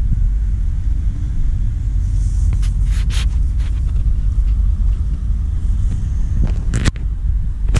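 Wind buffeting the camera's microphone: a loud, steady, gusting low rumble, with a few brief clicks of handling about three seconds in and again near the end.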